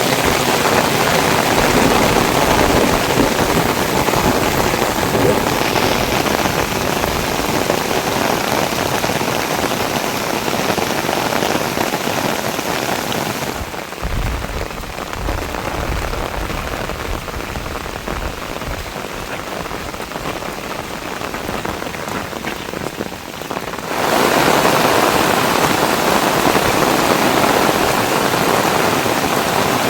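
Heavy rain pouring down steadily. About fourteen seconds in it turns duller and a little quieter for about ten seconds, then comes back full.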